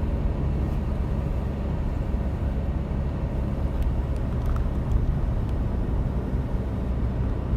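Steady low road and engine noise of a car being driven, heard from inside the cabin.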